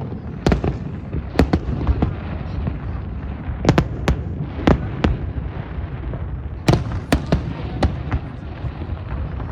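Fireworks display: a rapid, irregular series of sharp bangs over a continuous low rumble of shells bursting.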